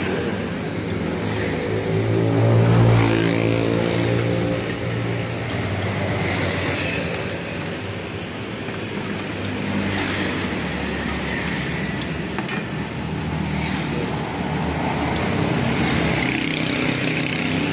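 Street traffic: motor vehicles passing on the road, with one engine passing close and loudest about three seconds in. Near the end comes the rustle of a plastic bag being handled.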